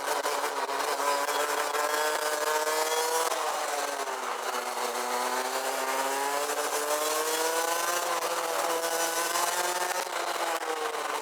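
Rotax Max DD2 125 cc two-stroke kart engine heard onboard, revving up under acceleration. Its pitch falls briefly about three seconds in, then climbs again through the rest, with a steady hiss of wind on the microphone.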